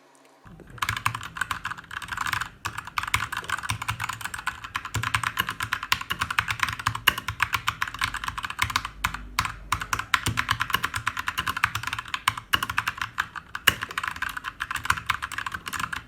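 Keychron K2 mechanical keyboard with red switches being typed on rapidly and continuously, a dense stream of key clacks that starts about a second in, with a couple of brief pauses.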